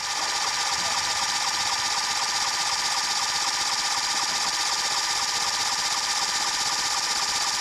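Small motor running steadily with a fast, even rattle and a thin steady whine, from the red portable machine whose hose feeds the probe being worked into the ground.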